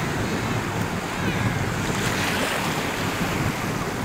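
Wind buffeting the microphone over the steady wash of choppy sea surf, with a swell of hiss about halfway through.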